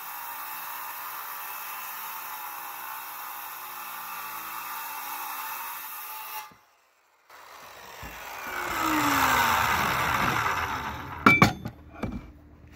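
Circular saw with a carbide-tipped blade cutting through an inch-thick aluminum block, a steady high cutting noise. It drops out briefly, then swells again to its loudest. A few sharp knocks near the end as the cut aluminum piece is handled.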